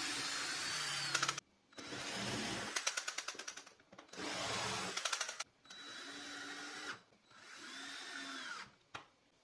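Cordless drill run in several short bursts with brief stops between: drilling a pilot hole into a hardwood block, then driving screws into it. Two of the runs end in rapid clicking.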